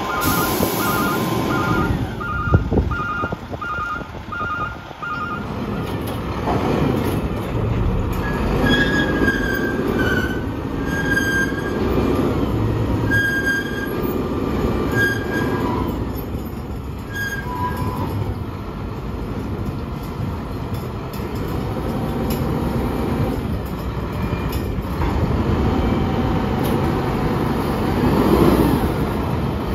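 Roll-off truck's diesel engine running under load with a backup alarm beeping about twice a second, which stops about five seconds in. Then come repeated high metallic squeals as the steel roll-off bin is moved on the truck's hoist.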